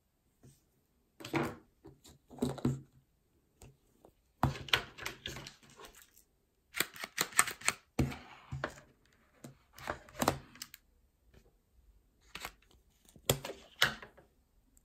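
Irregular clicks and clatters of hard plastic toys being handled, including a toy grabber claw, with a plastic surprise egg being pulled open near the end.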